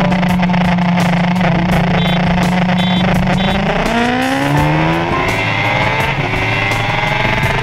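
BMW S1000RR inline-four engine running at a steady speed, then winding up hard as the bike accelerates from about four seconds in, its pitch climbing, with a drop in pitch around a second later like a gear change.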